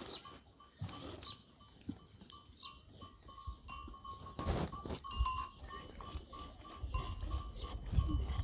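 Goats bleating now and then.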